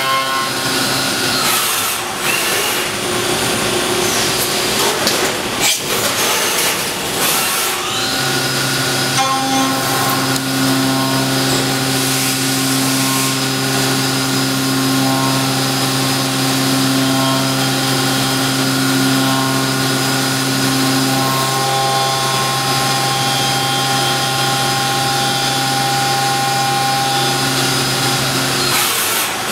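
Horizontal 5-axis CNC machining center running and machining, with grinding cutting noise; a steady spindle hum starts about eight seconds in and cuts off just before the end.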